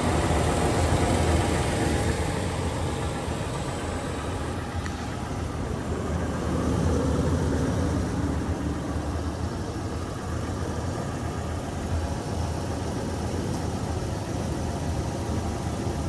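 Vehicle engine idling steadily, a little louder in the first few seconds.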